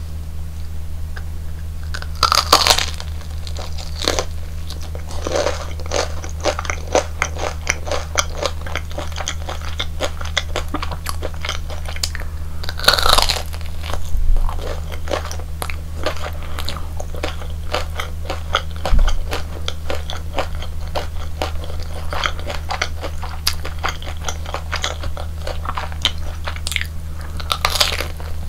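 Close-miked eating of crispy fried Korean hot dogs: three big crunching bites into the fried batter coating, about two seconds in, midway and near the end, with steady crunchy chewing between them. A steady low hum runs underneath.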